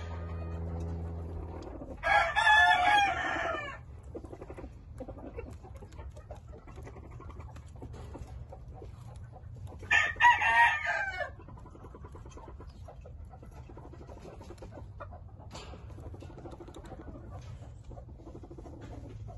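Gamefowl rooster crowing twice, two crows about eight seconds apart, each under two seconds long. A low steady hum stops just before the first crow.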